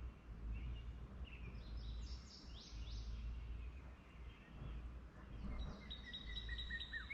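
Songbirds calling: a few high falling notes about two seconds in, then from about six seconds a fast, even series of short down-slurred whistles, over a low steady background rumble.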